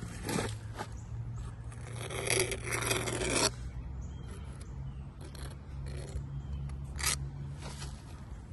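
Scraping and rubbing sounds of hands-on caulking work, with one longer scrape about two seconds in lasting about a second and a half, and a few short sharp clicks.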